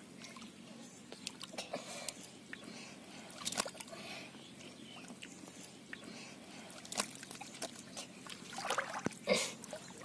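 Hands sloshing in shallow muddy water as they grip a catfish, with scattered wet splashes. The louder splashes come about three and a half seconds in and again in the last few seconds.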